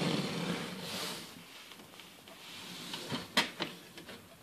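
Plastic toy gate-door panels being handled and fitted into a Playmobil fire-station extension: a soft scraping at the start, then a few sharp plastic clicks about three seconds in.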